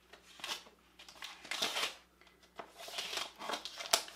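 Plastic-wrapped parcel rustling and crinkling as it is handled and opened, in a series of short rustles with a sharp click near the end.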